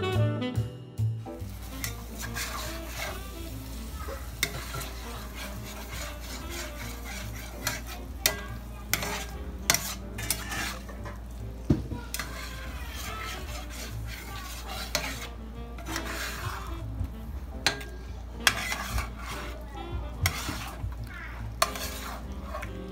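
Spatula stirring and scraping through a thick mushroom cream sauce in a hot cast-iron skillet, with frequent sharp clicks of the spatula on the pan over a light sizzle. A steady low hum runs underneath.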